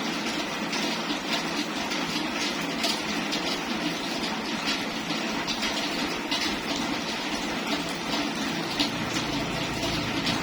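Steady heavy rain falling, a dense hiss with many close-set drops and splashes.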